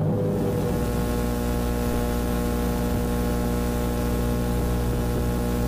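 Steady hum with a constant hiss from an old film soundtrack transfer, left once the music ends. It does not change pitch or level.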